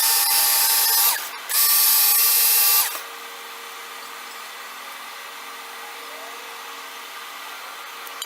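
Work Sharp Knife & Tool Sharpener's belt motor running in two short bursts of about a second and a half each, one honing pass per burst on the 6000 grit belt. It stops about three seconds in, leaving a quieter steady hum.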